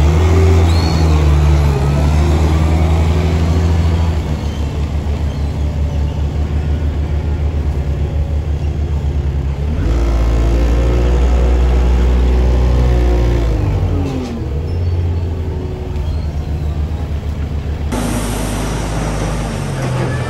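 Engine of a Gehl 540 articulated wheel loader running as it drives a feed pusher along the alley, its note rising and falling. About two seconds before the end it switches abruptly to a telehandler's engine running.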